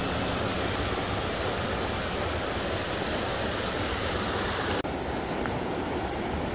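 Whitewater of a creek rushing over rocks, a steady even rush. It breaks off for an instant about five seconds in and goes on slightly duller.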